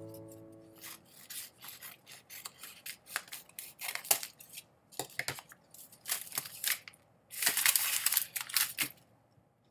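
Scissors snipping through paper in a run of short, irregular cuts, with a denser stretch of cutting and paper rustle about three quarters of the way through.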